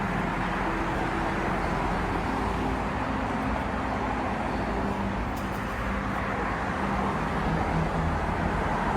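Steady road traffic noise, with a faint low engine hum running under it.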